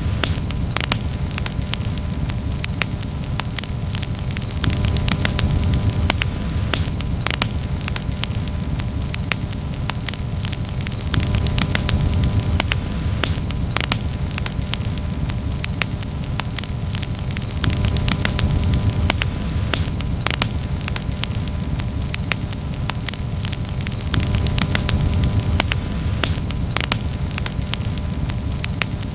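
Campfire burning with dense, irregular crackling and popping over a steady low rush.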